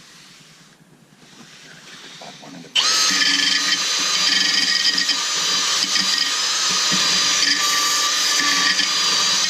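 Power drill starting abruptly about three seconds in and running steadily at high speed with a high whine, stopping right at the end.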